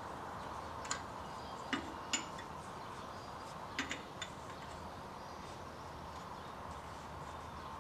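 A few light metallic clinks and taps of a wrench working at a brake bleeder screw, in small clusters in the first half, over a faint steady hum.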